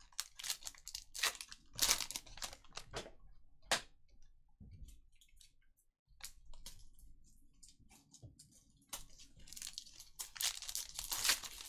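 Foil trading-card pack wrappers crinkling and tearing as they are ripped open by hand, in quick crackly clusters during the first few seconds and again near the end, with quieter card handling between.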